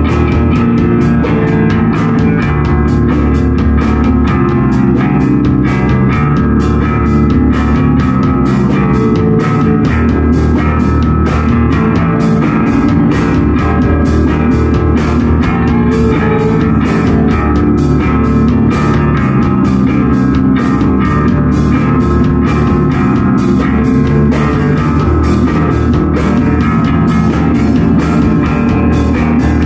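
Live rock band playing loudly: electric guitars and a drum kit, with a steady drum beat and no pause.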